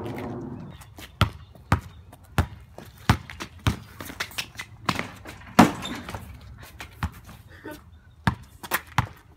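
Basketball dribbled on a concrete driveway: a string of sharp bounces, mostly about half a second to a second apart.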